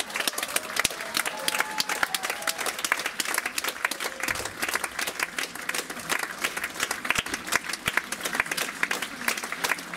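Theatre audience applauding: many hands clapping in a dense, continuous patter that holds steady throughout.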